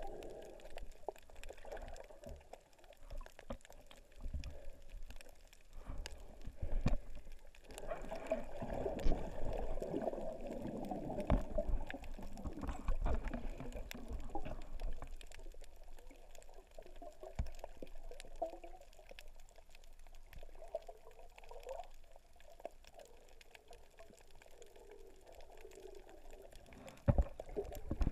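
Muffled underwater water noise heard through an action camera's waterproof housing: irregular sloshing and low rumbling as the snorkeler moves, with a few sharp splashy knocks near the end as the camera comes up toward the surface.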